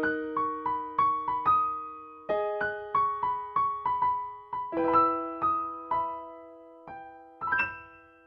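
Electric piano music: a picked-out melody over held chords that change every couple of seconds, ending on a final chord near the end that rings out and fades.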